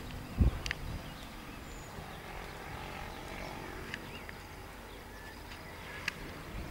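Horse cantering on a sand arena: soft, muffled hoofbeats over a steady low rumble of wind, with a strong low thump just under half a second in and a few short, sharp clicks.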